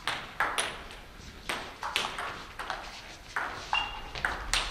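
Table tennis rally: the ball clicking sharply off the bats and the table in quick succession, about two hits a second. A brief high squeak sounds about three-quarters of the way through.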